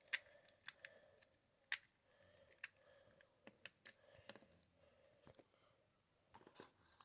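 Faint, scattered plastic clicks of a new Rubik's Cube being turned.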